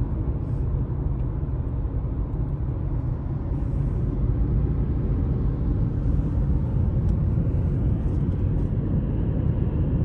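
Steady low road rumble inside a car's cabin while it drives at highway speed, getting a little louder about four seconds in.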